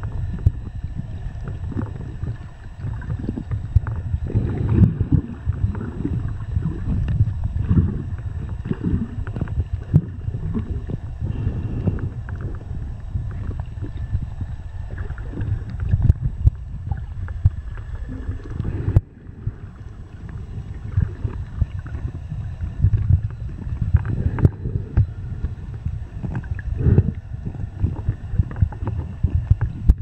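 Muffled underwater noise from a camera held under the sea: an irregular low rumbling and sloshing of water moving around the camera, dipping briefly a little over halfway through.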